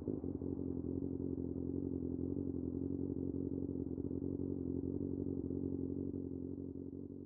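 Kawasaki Ninja ZX-6R's inline-four idling steadily through an M4 exhaust with no dB killer, fading out near the end.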